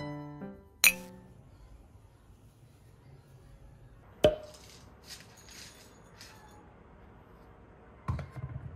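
Background music ending about a second in on a bright, ringing note. About four seconds in comes one sharp clink from a plastic pet food bowl and scoop being handled, then a few light clicks.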